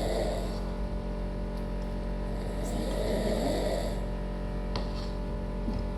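A person snoring in the background, with one long rasping snore around the middle, over a steady electrical hum.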